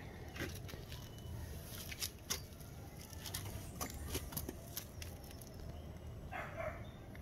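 Faint outdoor garden ambience: a steady low rumble with scattered soft clicks, and a short animal call a little after six seconds in.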